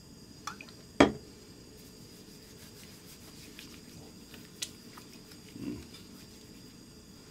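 Hands coated in cooking oil being rubbed together, a faint, slick, wet rubbing with small ticks. A sharp click about a second in is the loudest sound.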